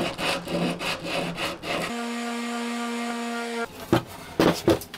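Quick back-and-forth rubbing strokes, about five a second, of sandpaper worked by hand on the freshly cut end of a poplar board. This is followed by a steady hum lasting under two seconds, then a few sharp wooden knocks as a wooden cabinet is handled.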